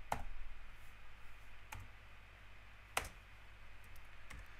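Four sharp computer clicks spaced about a second or more apart, the loudest about three seconds in, made while editing an on-screen equation. A faint steady low electrical hum runs underneath.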